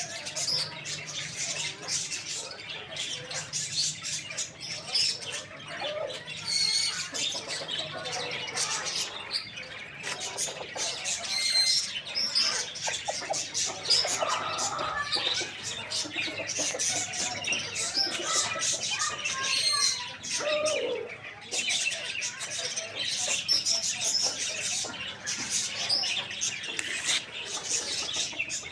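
Many small birds chirping and calling together in a dense, continuous chatter of short high chirps, with a few lower calls mixed in.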